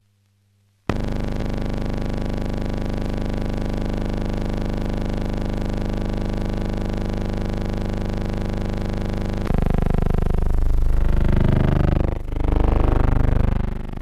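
A steady buzzing hum that starts suddenly about a second in and holds unchanged. About nine and a half seconds in, a louder, uneven low rumble joins it and dips briefly near the end.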